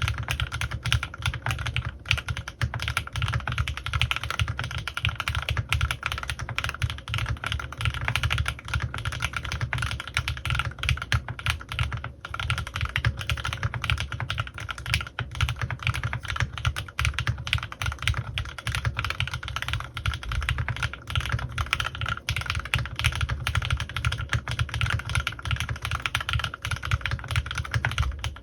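Continuous fast typing on a CannonKeys Rekt1800 mechanical keyboard with Gateron Milky Yellow linear switches lubed with Krytox 205g2 and PBTfans Resonance PBT keycaps: a steady, dense stream of key clacks.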